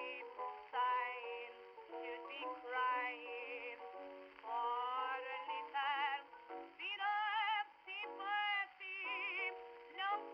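Background music: an early phonograph-era recording of a woman singing with a wavering vibrato over instrumental accompaniment, sounding muffled with no high treble.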